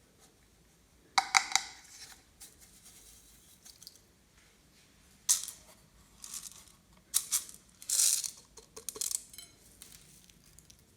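Glossy slime being pressed and stretched by hand, giving a series of short, sticky crackling and clicking bursts several times over.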